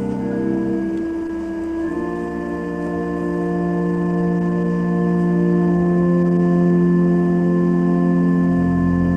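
Organ playing slow, sustained chords that change a few times, with a deep bass note coming in near the end.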